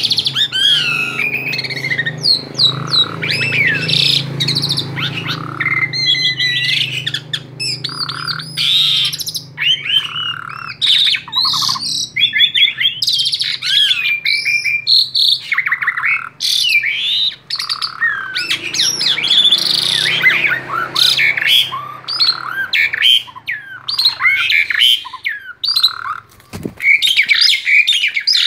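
Male Asian pied starling singing almost without pause, a fast, varied run of whistles, chirps and harsh squawks, the agitated song of an excited male.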